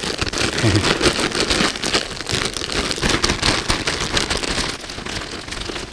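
Hands mixing and squeezing a batch of carp pack bait made with Fruit Loops cereal and fruit cocktail, just wetted with water. It makes a dense, continuous crackling.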